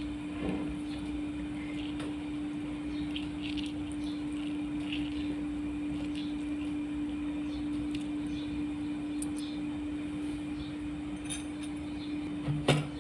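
A steady low hum with a few light clinks scattered through it, and one sharper knock near the end.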